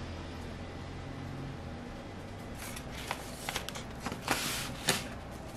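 Low steady room hum, then from about two and a half seconds in, rustling and a few sharp clicks of hands handling a paper card and a styrofoam delivery box.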